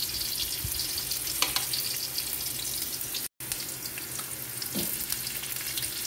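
Sliced ginger and garlic sizzling in a little oil in a steel wok, with a few short scrapes of a metal spatula. The sound cuts out for a moment about halfway through.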